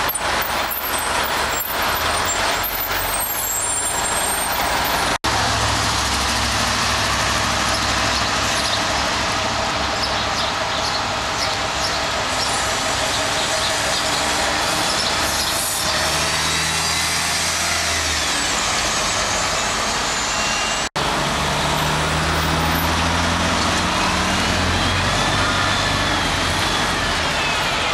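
City transit buses running in traffic: steady diesel engine and road noise as the buses turn and pull through, with a high whine rising and falling near the end. The sound breaks off for an instant twice where the recording is cut.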